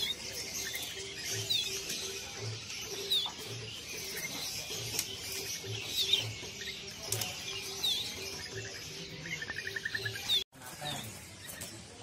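Caged songbirds chirping: a short, sharp chirp repeated every second or two, with a brief rapid trill near the end, over a low pulsing background. The sound cuts out briefly near the end.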